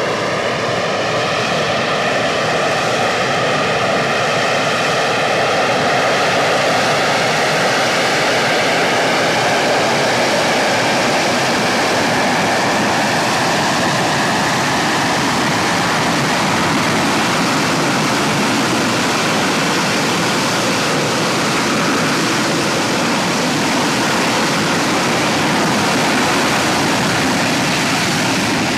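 AV-8B Harrier's Rolls-Royce Pegasus turbofan running at high power, a loud, steady jet roar. A fainter whine sits over it and fades away over the first few seconds.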